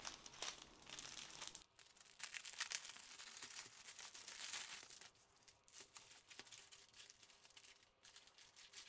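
Clear plastic wrap being torn open and crinkled by hand as a roll of diamond painting drill bags is unwrapped and unrolled. The crinkling comes in irregular bursts with short pauses.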